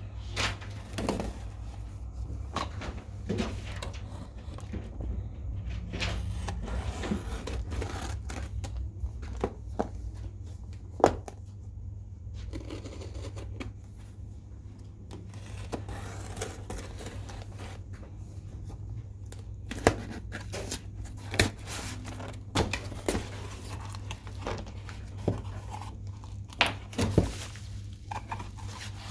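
Mail parcel being opened by hand: packaging tearing and rustling, with scattered sharp clicks and knocks, over a steady low hum.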